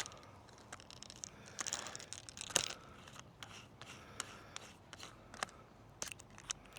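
Faint scattered clicks and light rustling, with a slightly louder rustle about two and a half seconds in.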